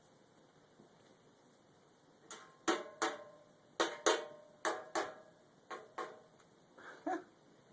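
A run of about eleven sharp knocks, mostly in close pairs, each with a brief ring, starting a couple of seconds in and stopping just before the end.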